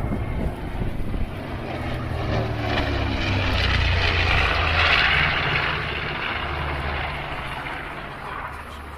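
Propeller-driven aircraft flying past, its engine drone growing louder to a peak about halfway through, then fading away.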